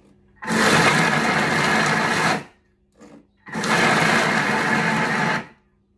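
Thermomix motor running on turbo pulses. Two bursts of about two seconds each, a second apart, chop and mix a thick mix of ripe bananas, dates, oats and pecans.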